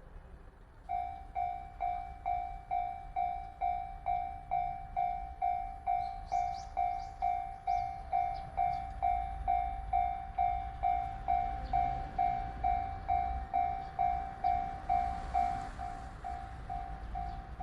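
Japanese level-crossing warning bell starting about a second in, ringing about twice a second with a clear fading ding on each strike. A low rumble, typical of a train approaching, builds under it in the second half.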